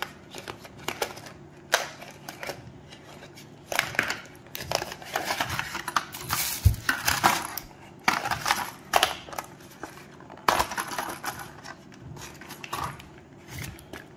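Packaging being handled: irregular clicks, taps and scraping rustles as earphones and their cable are pulled out of a moulded insert tray and the tray is lifted from its box.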